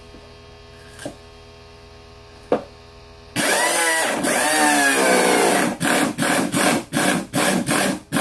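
Air impact wrench with a 14 mm socket running on a bolt, starting suddenly about three seconds in: a loud air rush with a motor whine that glides up and down, then short bursts about three a second as the trigger is pulsed. The bolt won't turn, which the owner puts down to his small compressor.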